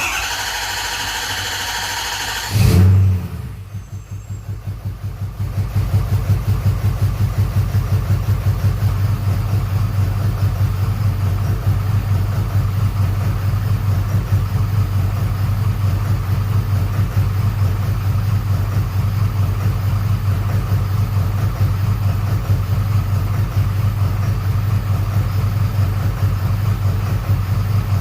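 Ford 6.7 Powerstroke V8 turbo-diesel cranking on the starter for about two and a half seconds, then catching with a loud burst. It runs unevenly for a few seconds and then settles into a steady idle. This is its first start after a fuel system repair, and the owner finds it running smooth with no rod knock he can hear.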